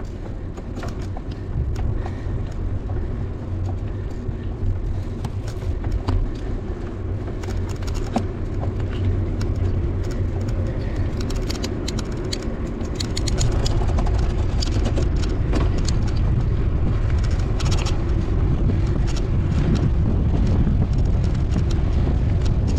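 Wind rumbling on the microphone while riding a bicycle along a highway, with road traffic going by. The rumble gets louder about halfway through.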